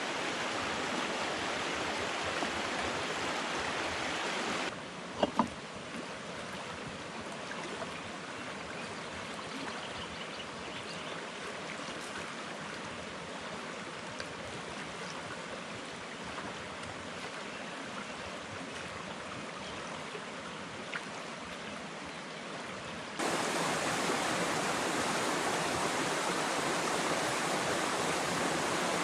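Steady rushing of running water, as from a stream. It is louder at first, drops abruptly about five seconds in, where two sharp clicks follow, and jumps louder again near the end.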